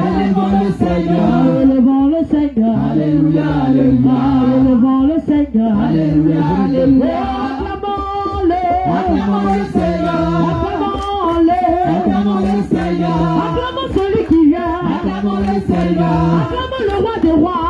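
A small group of singers, mostly women, singing a church worship song together into microphones.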